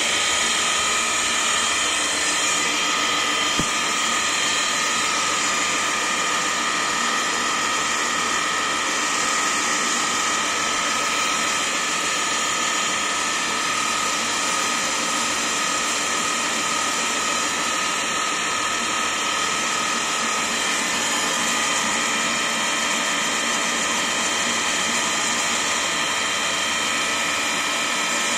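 Intos FNGJ20 tool room milling machine running with a D'Andrea TA120 boring and facing head spinning on the spindle. It is a steady mechanical whine of several even tones over dense machine noise, with one sharp click about three and a half seconds in.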